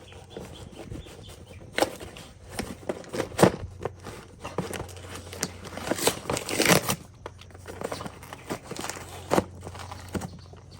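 A dog moving about and handling toys and packaging: irregular taps, scrapes and rustling, busiest about six to seven seconds in.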